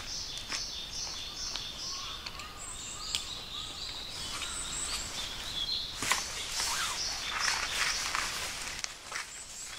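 Birds chirping in quick repeated calls, then from about six seconds in, the rustling of an MSR Storm King tent fly being handled, with scattered small clicks.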